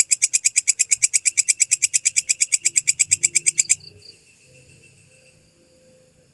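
Walang kecek katydid (belalang kecek) stridulating: a fast, even train of high, dry chirps, about eleven a second, that stops suddenly a little past halfway, leaving only faint background.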